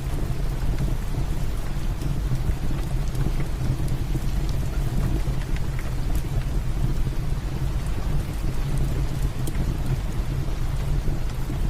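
Steady heavy rain with a low rumble underneath, and a wood fire crackling with a few scattered sharp pops.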